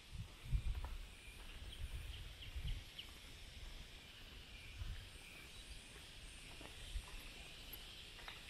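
Outdoor summer ambience: a steady high insect chorus with a few short chirps in the first three seconds. Low thumps and rumble from walking on a wooden boardwalk, heaviest in the first three seconds.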